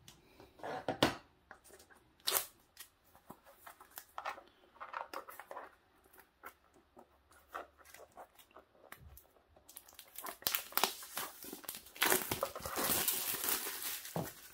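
Plastic packaging wrap being cut and torn open and handled: scattered clicks and rustles, turning into steady crinkling of the plastic about ten seconds in.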